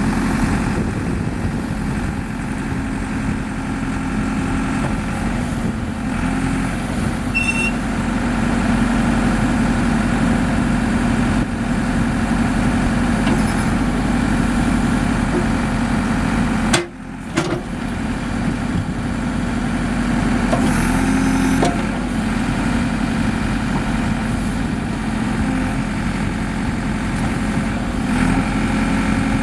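Diesel engine of a 2008 JCB 3CX backhoe loader running steadily at idle, with a momentary dropout in the sound a little over halfway through.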